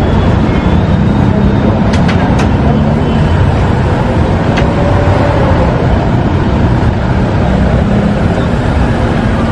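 Steady street traffic noise with engines running past. A few sharp clicks come about two seconds in and again near halfway.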